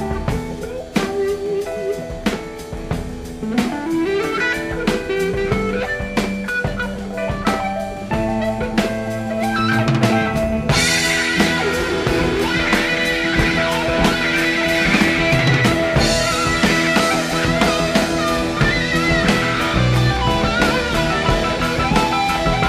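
Blues-rock band playing an instrumental passage: lead electric guitar plays bending lines over drums and bass. About ten seconds in, the band grows louder and fuller.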